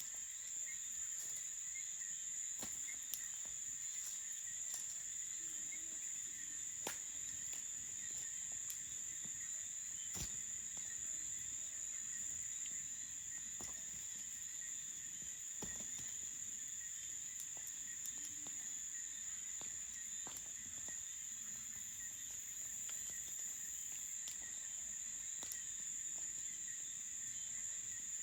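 Crickets chirring in a steady, unbroken high-pitched chorus, with scattered sharp crackles from a campfire.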